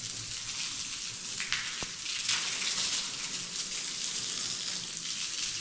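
Steady hiss of water spraying from a garden hose.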